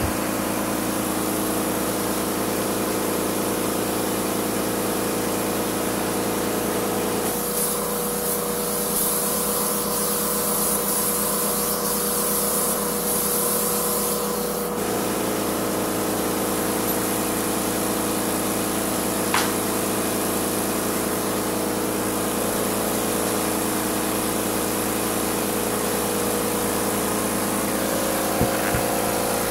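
Titan AirCoat air-assisted airless paint sprayer running with a steady hum. From about 7 to 15 seconds in, the hiss of the spray gun atomizing paint rises over it.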